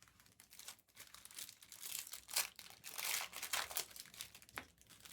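Plastic wrapping on trading-card packaging crinkling and tearing as it is pulled open by hand, a dense, irregular crackle.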